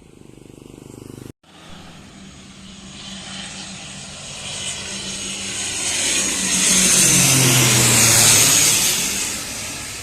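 CASA C-295 twin-turboprop transport flying past low: its propeller drone and high engine hiss swell to a peak about seven to eight seconds in. The propeller tone drops in pitch as the plane goes by, then the sound fades. About a second in, the sound cuts out for an instant.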